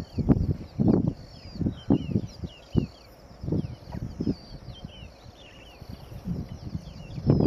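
Lions growling in short, low bursts about once a second as a male on his back and a lioness tussle and paw at each other. The growls ease off after about four seconds, while small birds chirp throughout.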